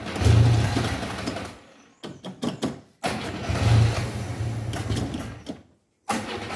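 1971 Ford Corcel's four-cylinder engine being started: it fires and runs for a second or two, then dies away, twice, and on the third try near the end it catches and keeps running. It struggles to start because the fuel system is full of air.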